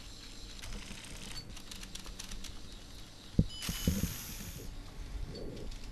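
LEGO Technic gear train and rack-and-pinion, motor-driven, ticking and whirring as the robot's gantry moves. About three and a half seconds in comes a sharp click, then a brief hiss lasting just under a second.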